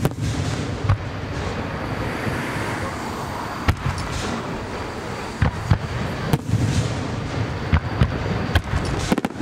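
Aerial fireworks shells bursting in a display: separate sharp bangs every second or two over a continuous rumble, with a quick flurry of bangs near the end.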